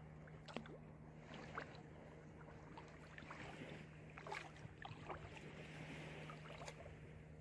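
Faint ambience beside a calm sea: a low steady hum under a light hiss, with scattered small ticks and rustles.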